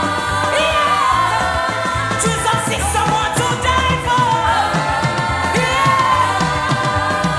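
Gospel worship music: a band with a steady bass pulse and voices singing a gliding melody without clear words.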